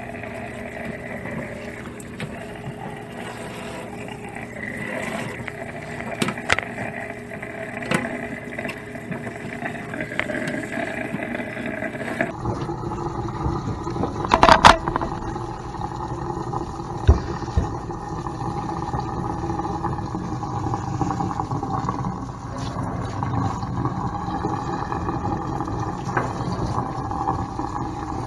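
Kitchen sink pull-down sprayer running: water spraying through dreadlocks and splashing into a stainless steel sink as the hair is rinsed, with a few sharp knocks, the loudest about halfway through.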